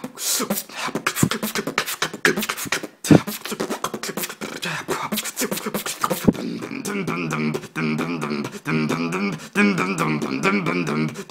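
Solo human beatboxing: rapid hi-hat and snare clicks with two heavy kick-drum hits. About two thirds of the way through, a wobbling hummed tone starts under the beat while the clicks go on.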